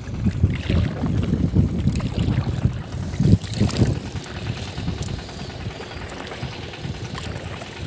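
Wind buffeting the microphone outdoors: an uneven low rumble, stronger in the first few seconds and easing after that.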